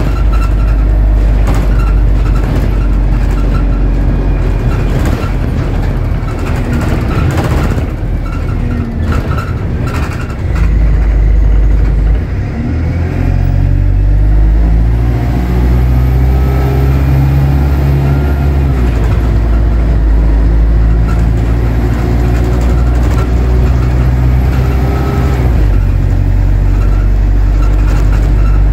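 Bus engine and road noise from a Hedingham and Chambers bus on the move. The engine note rises and falls in steps as the bus pulls away and changes gear. There are scattered knocks and rattles in the first ten seconds or so.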